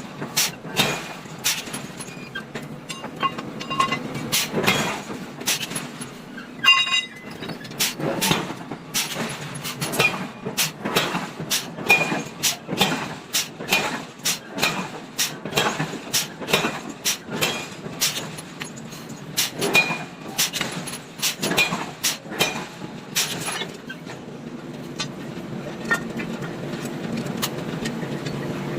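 Hammer blows on hot iron over an anvil, about one to two a second at an uneven pace, some with a short metallic ring, thinning out near the end.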